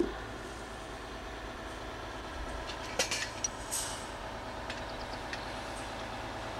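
Engine of a 70-ton crane running at a steady hum under load, holding a house section on its lifting cradle, with a few sharp clicks about three seconds in.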